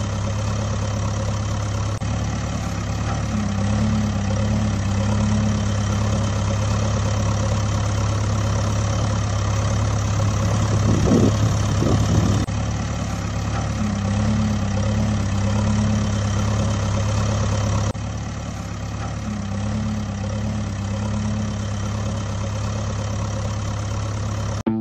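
Truck engine idling steadily, a sound effect laid over unpowered toy trucks, with a brief swell in the middle.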